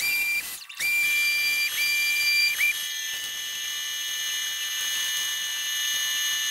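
High-pitched whine of a pneumatic orbital sander running free. It is triggered in short bursts twice, with a brief pitch glide as it starts and stops, then held steady and loud for several seconds.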